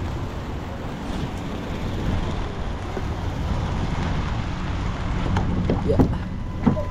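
An engine running steadily with wind buffeting the microphone, and a few short knocks near the end.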